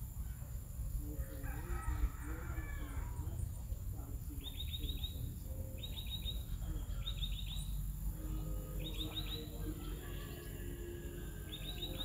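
Farmyard birds: a short rapid chirping trill of four or five notes repeated every second or so, over lower wavering calls of chickens, with a steady low rumble underneath.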